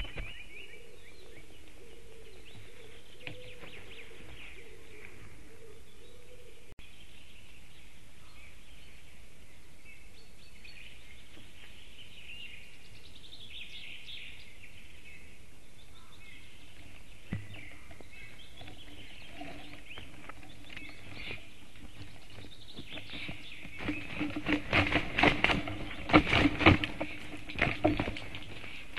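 Small forest songbirds chirping faintly over a steady hiss. About 24 seconds in, a loud burst of wing-flapping, rustling and clattering at the nest as a black stork mounts its mate with wings spread.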